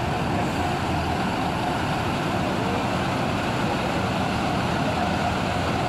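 Diesel engine of a large coach bus running steadily at low speed as the bus manoeuvres to park.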